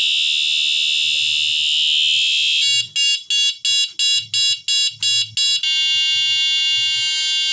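Electronic horn of a bicycle headlight with a built-in speaker, sounding while its handlebar button is held down and cycling through its horn sounds: a shrill steady tone, then about three seconds in rapid beeping at about three beeps a second, then near the end a steady whistling tone.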